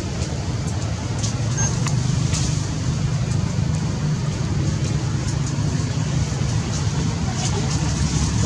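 Steady low rumble under a light hiss, with a few faint short clicks.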